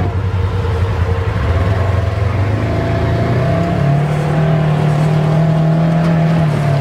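Polaris RZR Trail S 1000 side-by-side's twin-cylinder engine running as the machine pulls away, heard from its open cab. The engine pitch rises about three seconds in and then holds steady.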